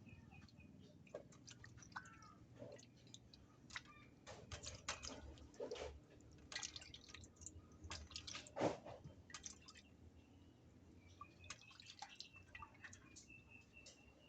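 Raw chicken pieces being washed by hand in water: irregular small splashes, drips and wet squelches, with one louder splash about nine seconds in.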